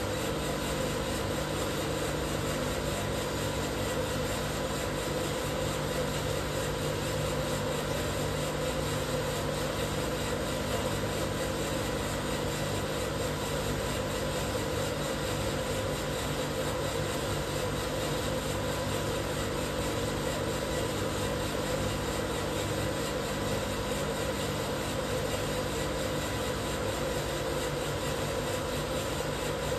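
Probat Probatone P12 Series 2 coffee roaster running steadily through a roast: a continuous machine hum with several constant tones held throughout.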